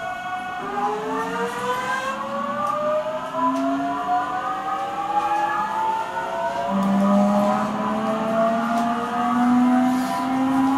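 JR 373 series electric train car KuMoHa 373-11 accelerating: the inverter and traction motor whine rises steadily in pitch as several tones together, over the running noise of the car. This is the car that is known for an unusual motor noise.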